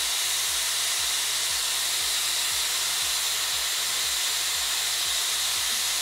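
Dyson Airwrap blowing air through its round volumizing brush on the cool-shot setting: a steady rush of air with a faint high whine.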